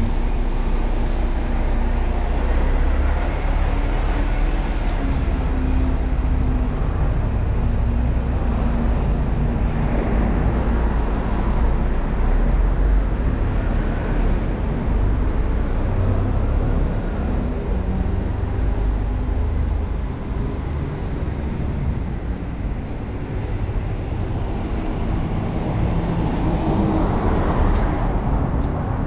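City street traffic with a steady low rumble: a concrete mixer truck's diesel engine running close by in the first part, and cars going by on the road. Near the end one vehicle passes close.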